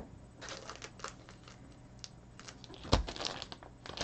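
Faint rustling and light clicks of trading cards and card packs being handled, with a soft knock about three seconds in.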